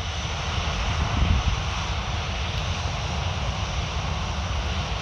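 Airbus A320 jet engines running steadily at low power while it holds on the runway before takeoff: an even low rumble under a broad hiss.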